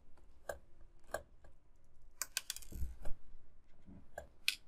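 Scattered light clicks and taps of a small screwdriver and hands on the plastic case of a Lenovo G50-70 laptop, with a quick clatter and a dull knock about two to three seconds in.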